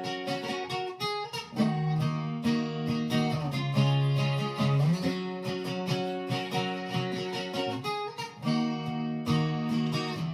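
Instrumental guitar passage: acoustic guitar strumming and picking chords, changing chord every couple of seconds, with no singing.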